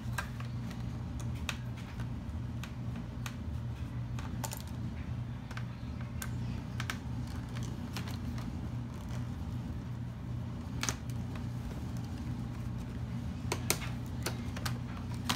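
Light, scattered clicks and taps of a small screwdriver and fingers on an HP Pavilion DV7 laptop's plastic keyboard and bezel as the keyboard's retaining screws are taken out. A few sharper clicks come near the end, over a steady low hum.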